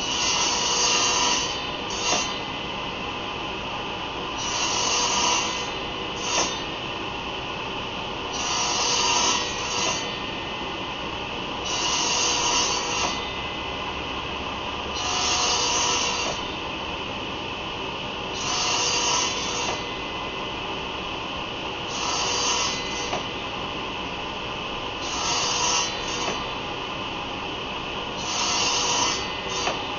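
Table saw running with its blade raised 1/8 inch, taking repeated nibbling passes across wood to plow out a shallow dado. A burst of cutting about every three and a half seconds, nine in all, over the steady run of the saw.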